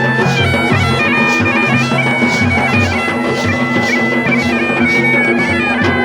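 Bagpipe music: a reedy melody stepping between held notes over a steady drone, with drums beating a regular rhythm underneath.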